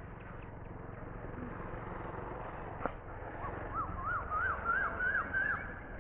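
Low, steady rumble of a WDG3A diesel locomotive's ALCO V16 engine as it approaches in the distance. A sharp click sounds about halfway, then a louder series of about seven short swooping whistled notes follows, each a little higher than the last.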